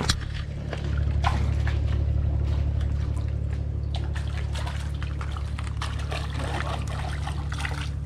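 Water trickling and lapping, with irregular small splashes, over a steady low rumble.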